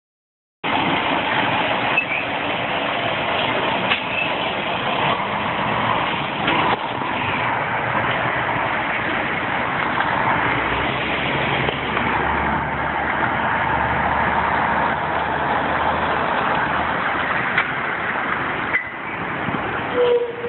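Truck engine running close by amid steady street noise, with a deeper rumble from about ten to seventeen seconds in as it passes.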